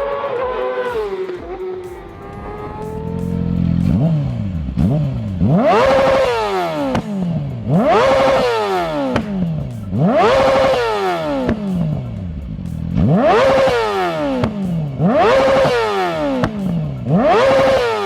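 Motorcycle engine revved repeatedly with a series of quick throttle blips. Each blip is a sharp rise in pitch followed by a slower fall back toward idle, about every two seconds.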